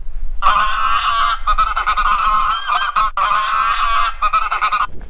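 Chorus of honking geese played through an electronic goose caller: many overlapping calls that start about half a second in and run in blocks with abrupt stops and short breaks, ending just before the close.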